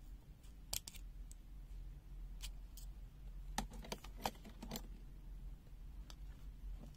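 Scattered light clicks and taps from handling a capacitor and multimeter test probes, over a low steady hum.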